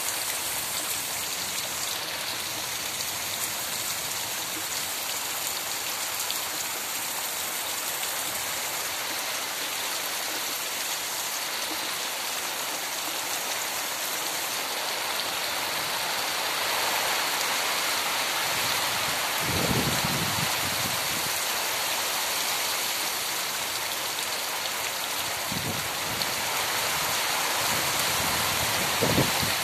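Heavy rain falling steadily on wet bare earth: an even hiss of drops striking the ground. A brief low rumble comes about twenty seconds in.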